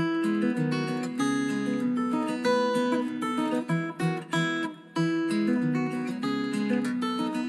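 MIUI 11 ringtone on a Redmi 4X phone: a strummed acoustic guitar tune, starting abruptly.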